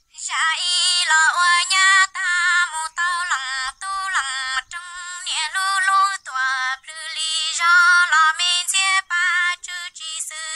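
A woman's voice singing a Hmong sad song (nkauj kho siab), high and thin-sounding with no low end, in short phrases with a wavering pitch and quick breaks between them.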